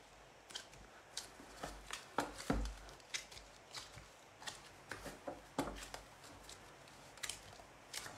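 Gloved hands slapping and patting a heavy block of black clay on a pottery wheel bat: irregular sharp slaps, about one or two a second.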